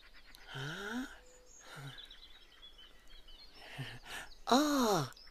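Four wordless, rising and falling vocal calls like "oh?" from a costumed character, the last near the end the loudest, with faint birdsong behind.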